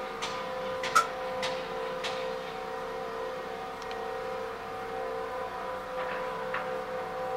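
Steady droning hum inside an apartment building, heard as several held tones, with a handful of sharp knocks scattered through it; the loudest knock falls about a second in.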